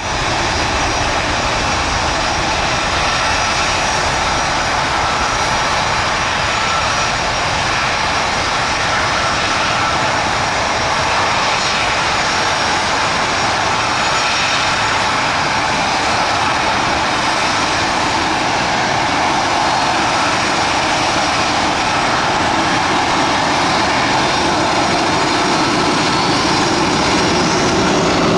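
McDonnell Douglas MD-88's two rear-mounted Pratt & Whitney JT8D turbofans running steadily at taxi power, a continuous jet engine noise with a faint whine that comes and goes, growing a little louder near the end.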